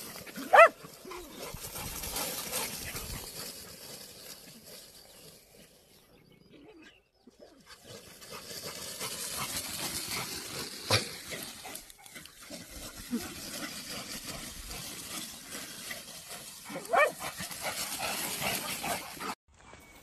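A dog lets out a short, loud, rising yelp about half a second in and another near the end, over a steady rushing noise.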